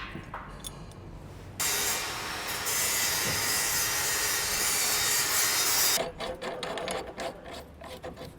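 A hand tool rasping steadily on material for about four seconds, stopping abruptly, then a run of short scraping strokes, as in cutting or filing pipe during plumbing work.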